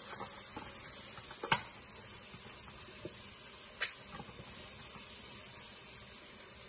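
Spatula scraping and knocking as tomato paste is emptied into a metal pot, with two sharper clicks, about a second and a half in and near four seconds, over a faint steady hiss.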